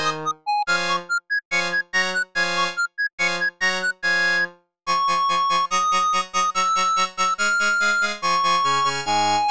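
Samsung Anycall SPH-X4200 polyphonic ringtone, a synthesized MMF tune played back in Yamaha's MidRadio player. It opens with short, evenly spaced staccato chords, breaks off briefly a little before the middle, then goes on with held melody notes over a fast pulsing accompaniment.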